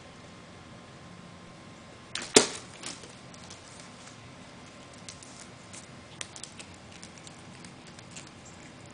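A cat playing with Christmas wrapping paper and ribbon on a wooden floor: one sharp knock about two seconds in as it pounces, then faint scattered crinkles and ticks of paper and ribbon as it bats and chews at them.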